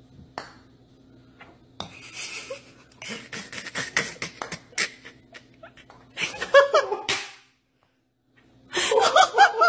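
A person's voice in short bursts of laughter-like sound, with clicks and rustling between them, over a low steady hum.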